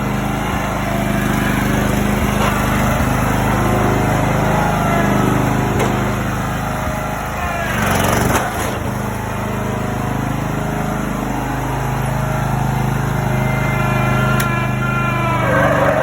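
A lawn mower engine running loudly and steadily, its pitch rising and falling as it is revved, with a brief rushing surge about halfway through and revs climbing again near the end.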